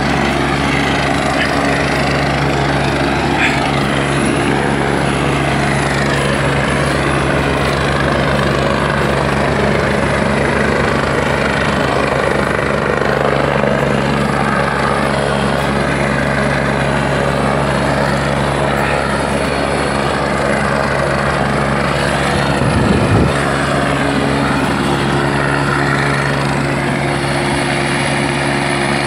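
Mountain rescue helicopter's rotor and turbine engine running steadily, hovering low over the slope during a rescue.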